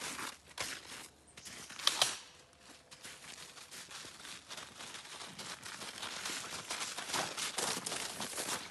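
Footsteps crunching through thin snow over dry fallen leaves, a dense run of small crunches and rustles, with one louder sharp crunch or crack about two seconds in.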